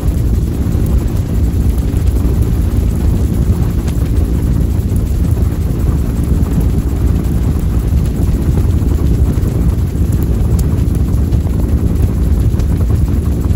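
Bell UH-1 Huey helicopter in flight, heard from aboard: a loud, steady drone of its turbine engine and two-blade main rotor.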